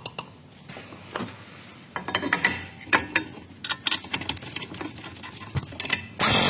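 Hand ratchet clicking in quick runs as threadlocked brake caliper bracket bolts are run in, with small metal clinks. Just before the end a loud steady noise starts.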